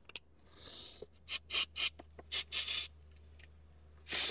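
Aerosol carb cleaner sprayed in a series of short hisses through the small holes of a motorcycle carburettor's emulsion tube, flushing out the dirt that had blocked it. The longest and loudest spray comes near the end.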